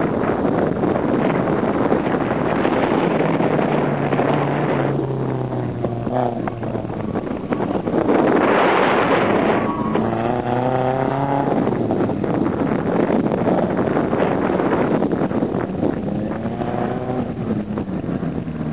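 Car engine driven hard around an autocross course, revving up and easing off in repeated rising and falling sweeps between the cones. A loud rushing noise swells briefly around the middle.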